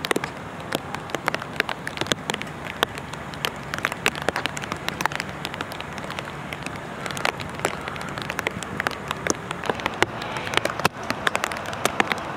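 Rain falling after a thunderstorm: a steady hiss with many irregular, sharp drop hits close by.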